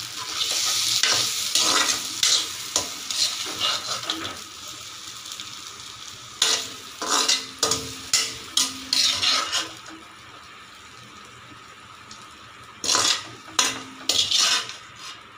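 Metal spoon scraping and stirring prawn masala in a hot kadai, with a sizzle of frying under it. A run of quick, sharp scrapes comes midway, then a quieter stretch, then a few more scrapes near the end.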